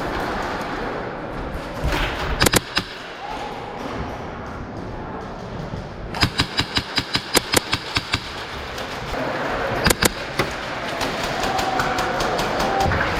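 Airsoft guns firing in close-quarters play: a couple of sharp shots about two and a half seconds in, a rapid string of about a dozen shots at roughly five a second a few seconds later, and two more shots near the end, over steady arena background noise.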